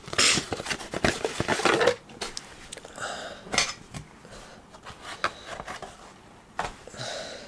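Cardboard card box and its sleeve being handled: scraping and rustling, with a string of sharp clicks and knocks, busiest in the first two seconds.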